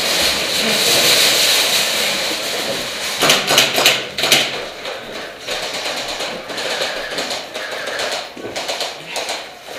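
Metal shopping cart being dragged over rough ground, its wheels and wire basket rattling, with a cluster of sharp knocks about three to four seconds in.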